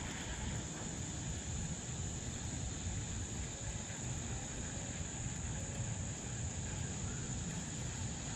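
Steady high-pitched drone of insects over a low background rumble.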